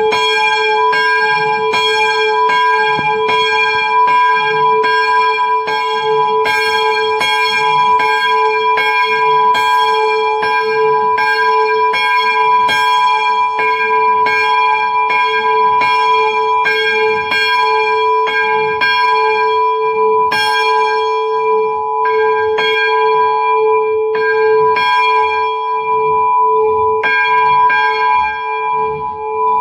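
A swinging church bell ringing for the morning call, its clapper striking in an even rhythm of about one and a half strokes a second over a loud, sustained hum and ring. In the last third the strokes come unevenly, with gaps between them.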